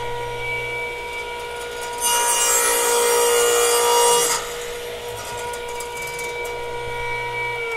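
DeWalt 790 radial arm saw running with a steady motor whine. About two seconds in, the blade crosscuts a small piece of plywood for about two seconds, a loud rasping hiss over the whine. Then the saw spins free again.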